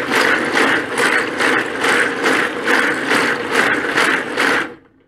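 3D-printed braiding machine running on its chain-and-sprocket drivetrain: printed gears, bike chain and bobbin shuttles clatter with a regular pulse a little over twice a second. It stops near the end.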